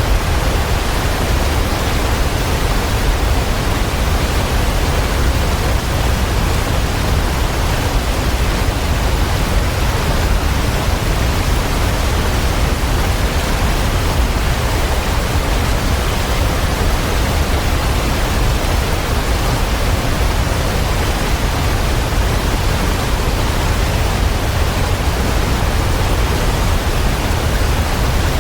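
Waterfall: a steady, unbroken rush of falling water, deepest and fullest in the low end.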